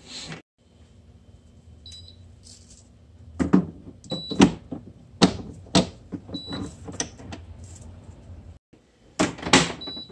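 Plastic clicks and knocks from handling a card printer: the ribbon cartridge being fitted inside the open top cover, then the cover pressed shut with louder clicks near the end. A low steady hum runs under most of it.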